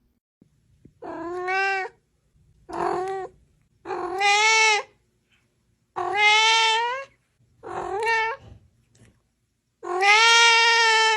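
A cat meowing loudly six times in a row, each meow drawn out, the last the longest and cut off abruptly.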